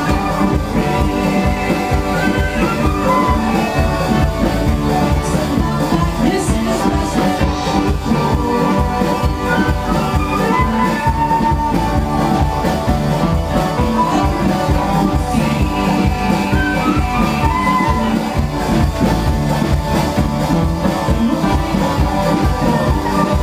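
Upbeat string-band music with acoustic guitar, plucked strings and a steady drum beat.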